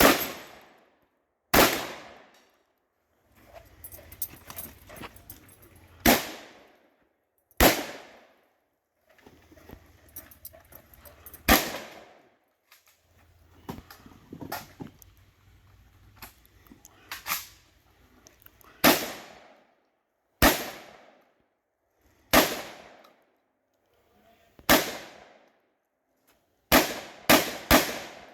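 Shotgun firing about fourteen shots, each loud and sharp with a short ringing echo. For most of the string the shots come one to four seconds apart, then four come in quick succession near the end.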